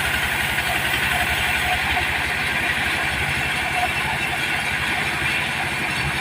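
Diesel engine of a mobile sawmill running steadily, with an even low pulse.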